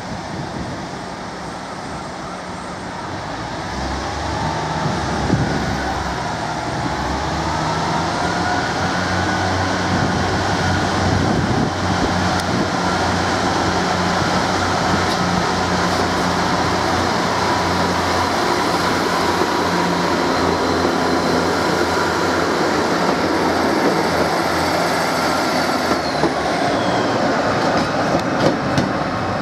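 Class 143 Pacer diesel multiple unit pulling away, its underfloor diesel engines revving up a few seconds in and then running steadily under power. A few sharp clicks near the end.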